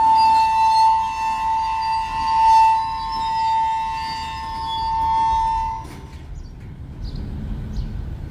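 Loaded freight cars rolling slowly past with a loud, steady, high metallic squeal from the wheels. The squeal cuts off about six seconds in, leaving the low rumble of the cars on the rails.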